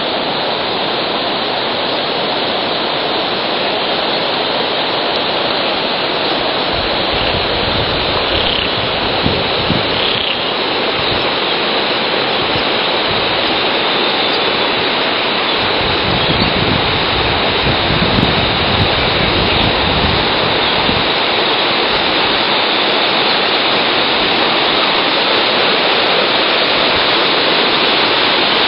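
River water pouring over a low concrete weir: a steady, even rushing. Some low rumbling comes and goes in the middle.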